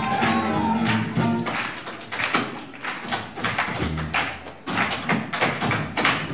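Tap dancing: a fast run of sharp taps from tap shoes on a stage floor. The swing band drops out after about half a second, leaving the taps on their own, with a short band chord about four seconds in.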